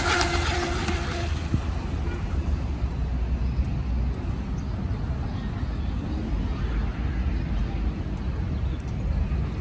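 Delta Force Mini Storm RC speedboat's 3400KV brushless electric motor whining with a hiss of spray as the boat runs past, the whine fading out about a second in, over a steady low rumble.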